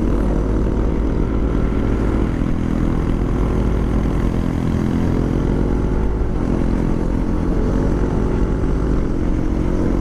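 Yamaha Aerox 155 scooter's single-cylinder engine running steadily under way, its pitch rising and falling a little with the throttle.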